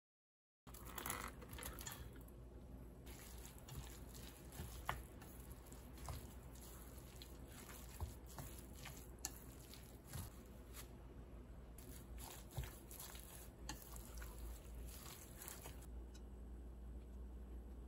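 Batter being mixed in a stainless steel bowl: a whisk stirring frying mix and cold water, with scattered light clicks against the bowl, then shredded kabocha, carrot and sweet potato stirred wetly into the batter.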